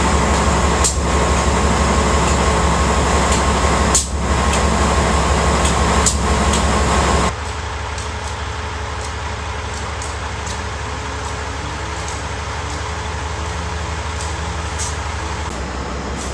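Steady hum of an idling Amtrak train: the diesel GE Genesis locomotive and the Superliner passenger cars standing at a platform. It drops abruptly to a quieter, steady hum about seven seconds in.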